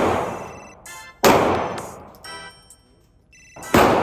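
Pistol shots on an indoor range, each trailing a long echoing decay. There is one at the start, another just over a second in, and a third near the end.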